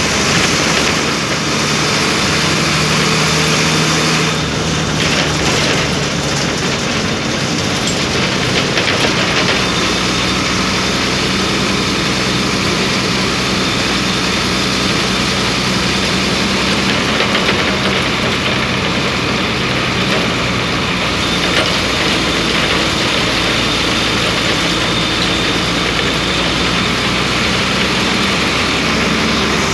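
Diesel engine of a Sri Lanka Transport Board bus running on the move, heard from inside at the front of the bus: a loud, steady drone whose engine note shifts a few times as the speed changes.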